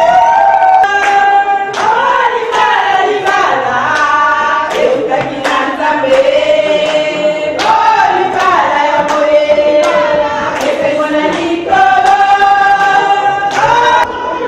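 A group of voices singing long held notes in a melody, over regular sharp percussive beats.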